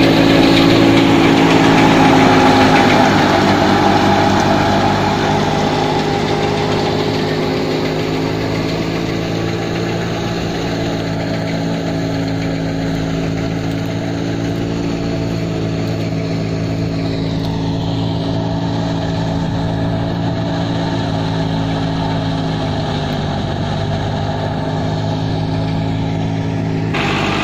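Massey Ferguson tractor's diesel engine running steadily while powering a wheat thresher through its PTO shaft, a little louder for the first few seconds.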